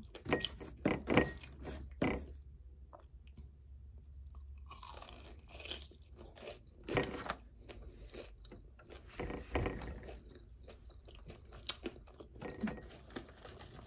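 Close-miked chewing of crisp fried food from a Wingstop order of chicken wings and fries: irregular crunches and wet mouth smacks, coming in clusters with short pauses between bites.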